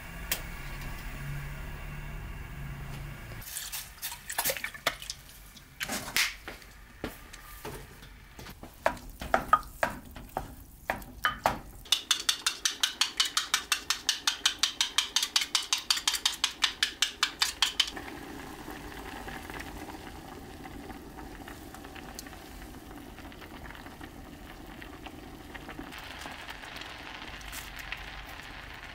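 Cooking sounds at a ceramic clay pot of rice porridge on a gas stove. First come scattered clinks and knocks of utensils and dishes. Then an egg is beaten briskly in a glass, about five quick taps a second for some six seconds, and after that the porridge simmers softly in the pot.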